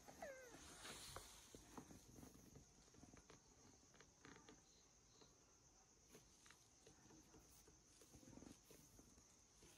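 Near silence with a faint steady high-pitched tone behind it. About a quarter-second in, a kitten gives one brief, faint, falling mew, followed by soft scattered rustles as its fur is stroked.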